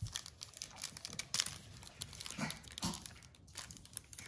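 Foil trading-card pack wrapper crinkling as it is handled and opened, a run of irregular crackles. Two short, low voice-like sounds come about half a second apart near the middle.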